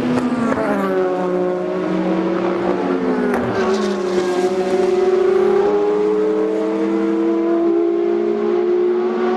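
Several endurance race cars' engines running at racing speed, overlapping. Pitch drops sharply about half a second in and again about three seconds in as cars pass, then a long, slowly rising engine note follows as a car pulls away.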